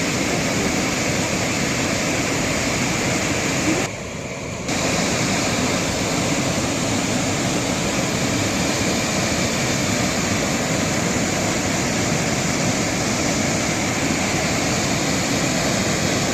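Steady rushing of a waterfall, dipping briefly about four seconds in.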